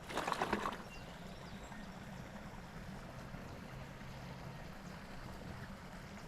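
A short, rough splashing rustle in the first second, then a low steady hum with faint water noise.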